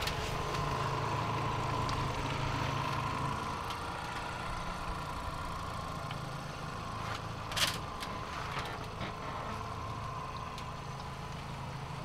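Boat motor running steadily at trolling speed with a low hum. There is a brief hiss about seven and a half seconds in.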